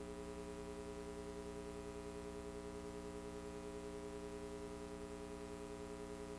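Steady electrical hum with a buzzy stack of evenly spaced overtones, unchanging in pitch and level.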